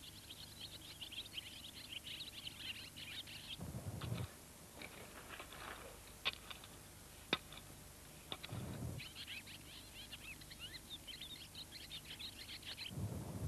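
Birds chirping in a quick stream of short high calls, broken by three brief low rumbles and two sharp clicks.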